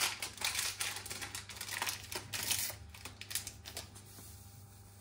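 Quick crinkling and clicking of a small sachet of baking powder being handled and torn open, busiest for the first three seconds and then thinning out.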